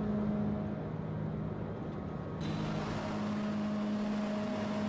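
Radial forging machine running as its hammers work a red-hot steel bar: a steady mechanical hum with a few low droning tones. About two and a half seconds in, the sound turns brighter and hissier.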